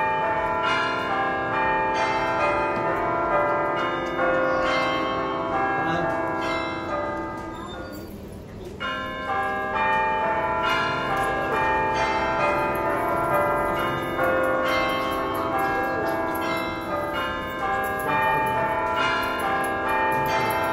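Bells ringing, struck over and over about once a second so that their tones ring on and overlap, with a short lull about eight seconds in.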